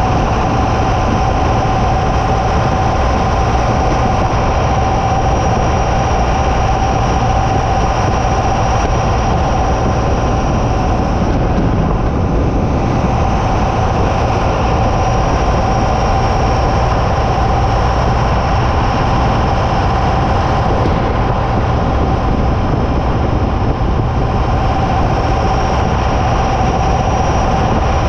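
Ford F-150 driving on the road, heard from beneath the truck beside its front solid axle: loud, steady road and tyre rush with a constant whine over it.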